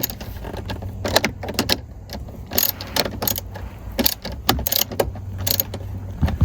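Irregular clicks and knocks of hands and tools working plastic steering-column trim on a car, over a steady low hum.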